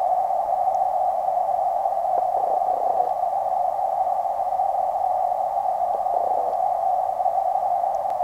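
Steady, muffled, narrow-band hiss picked up by a waterproof camera submerged in a creek. Faint brief rumbles come about two and six seconds in.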